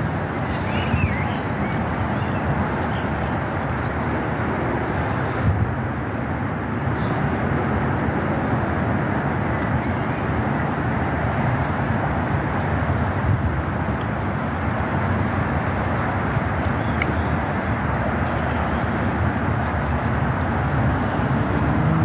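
Steady rushing outdoor background noise, strongest in the low range, with no bird calls standing out.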